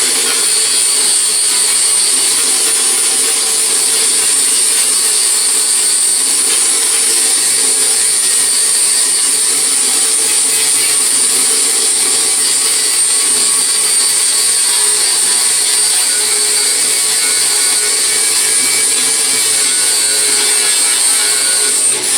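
A grinder running steadily with a high whine as it grinds down welds to blend them in.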